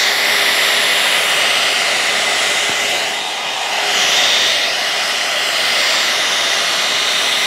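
Alan Truman hot-air blow brush running steadily, a rush of blown air with a faint steady whine, as it is drawn through a section of wet hair.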